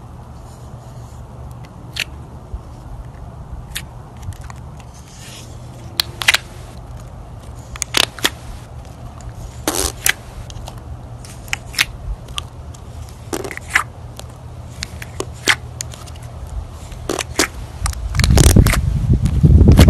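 Clear glitter slime being played with, giving irregular sharp pops and clicks, several a few seconds apart, over a steady low hum. Near the end a louder low rumbling handling noise comes in.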